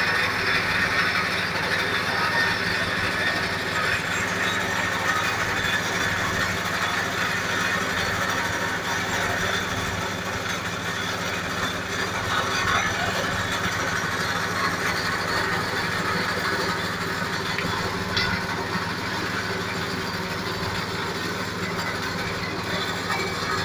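Feed milling machine running steadily: a constant motor hum with a dense rushing grinding noise over it.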